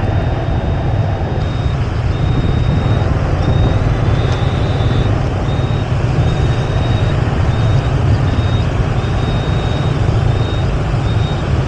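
Steady rumble and noise of travelling through city traffic, with a high electronic beep sounding on and off throughout in uneven pulses.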